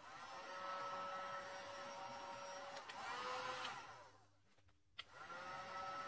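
Handheld heat gun running, a steady blowing rush with a fan whine, as it blows hot air over wet epoxy resin to soften and push the white wave foam. It cuts out a little after four seconds in and starts again with a click about a second later.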